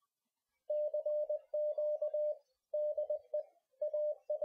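Morse code: a single steady tone keyed on and off in dots and dashes, starting under a second in, in groups of characters with short pauses between them.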